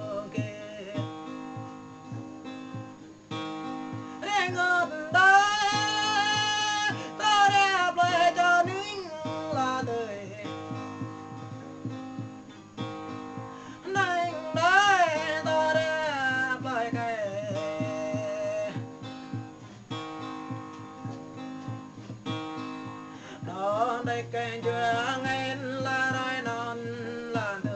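A Jrai-language song: a singer's voice over plucked and strummed acoustic guitar, with instrumental stretches between the sung phrases.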